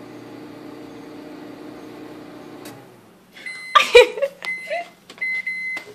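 Microwave oven running with a steady hum, with a halved grape inside that is not sparking. The hum stops about three seconds in, followed by a loud knock and a few high beeps.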